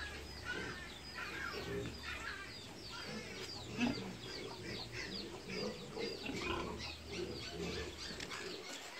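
Backyard chickens clucking, with many quick, high, falling chirps throughout.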